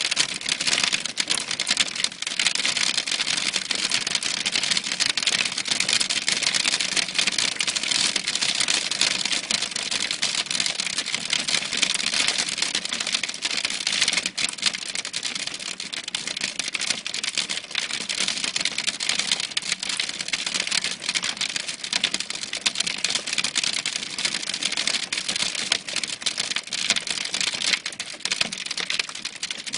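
Hail mixed with rain falling steadily: a dense, rapid clicking of hailstones over a hiss of rain.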